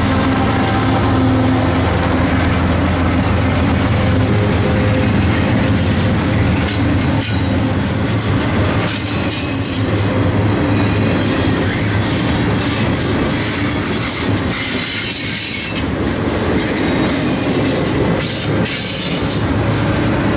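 CSX double-stack intermodal freight train rolling past at close range. The trailing diesel locomotive's engine drone fades in the first few seconds, leaving a steady rumble and clatter of steel wheels on the rails with some wheel squeal.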